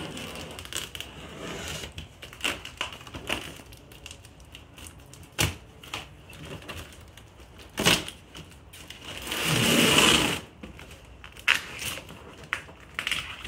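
Box cutter slitting the packing tape on a large cardboard box, with scrapes, taps and sharp knocks of cardboard as the flaps are worked. The loudest sound is a rasp of about a second, a little past two-thirds of the way in.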